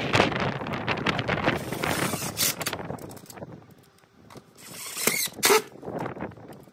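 Power drill driving screws through a SolaDeck combiner box into a standing seam metal roof panel. There is a run of about three seconds, a pause, then a short burst about five seconds in.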